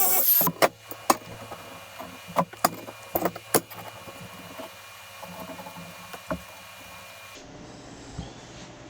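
Music cuts off, then an irregular run of sharp clicks and knocks, about a dozen, thickest in the first few seconds. Near the end they give way to a steady low hiss.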